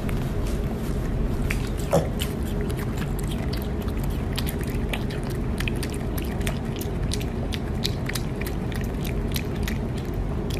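Piglet chewing and smacking on a piece of food: a fast, irregular run of small wet clicks over a steady low background hum, with a brief squeak about two seconds in.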